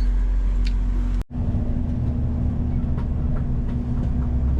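Passenger train running, heard from inside the car: a steady low rumble with a constant hum. It cuts out for a moment a little over a second in.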